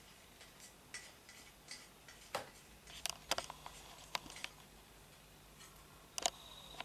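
Faint, scattered clicks and taps of a telescope finder-scope bracket and tube being handled and fitted together, the sharpest knocks clustered around the middle and one more shortly before the end.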